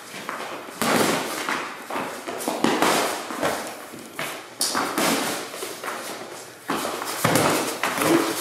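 Boxing gloves striking during sparring: several sharp slaps and thuds at an irregular pace, each with the short echo of a bare garage. Shoes scuff on the concrete floor between the blows.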